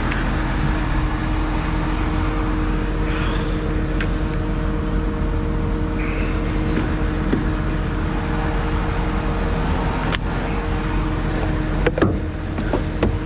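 Heavy lorry diesel engine idling steadily, with a few sharp metallic clinks of hand tools on the axle, most of them near the end.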